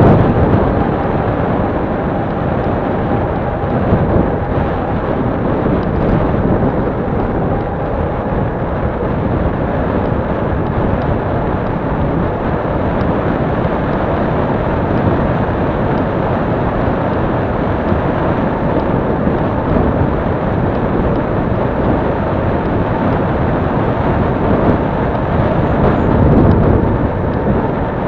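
Wind buffeting the microphone and tyre rumble of a bicycle rolling on asphalt, picked up by an action camera mounted on the handlebars: a loud, steady rumbling noise.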